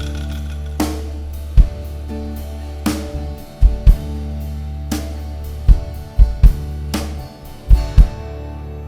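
Live rock band playing an instrumental passage: drum kit with heavy bass-drum kicks, often in pairs, and snare and cymbal hits over sustained bass and guitar chords.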